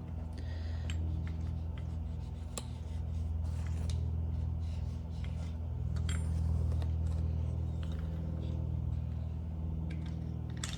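Scattered light clicks and scrapes of outboard motor parts being handled during disassembly, over a steady low hum.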